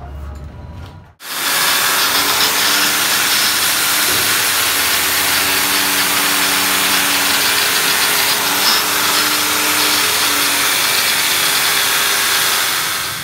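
Angle grinder running with its abrasive disc pressed against a truck's front wheel spindle as it turns in a lathe, a loud, steady grind of disc on metal. It starts abruptly about a second in and runs on evenly.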